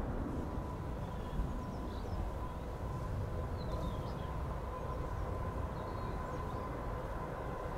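Boeing 777-300ER's GE90 engines climbing out after take-off, heard as a steady low rumble with a steady whine. A few small birds chirp briefly over it.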